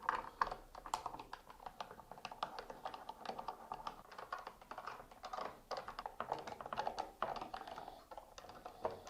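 Phillips screws being unscrewed with a screwdriver: a quick, uneven run of small clicks and scrapes, thinning out near the end.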